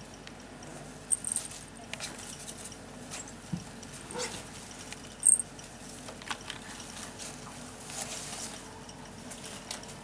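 Young ferret kits, about six weeks old, giving brief high-pitched squeaks, loudest about a second in and again about five seconds in, among light rustling and scattered small clicks.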